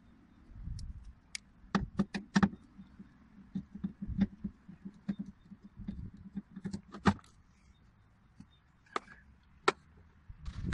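Plastic interior trim on a car being pried and pulled loose from its clips: a run of sharp plastic clicks and knocks, some with a dull thud, in uneven clusters.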